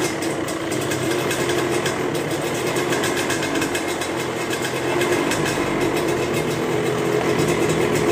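Suzuki Satria single-cylinder two-stroke engine idling steadily, slightly louder in the second half. It is running smoothly after its worn piston was replaced to cure a noisy engine.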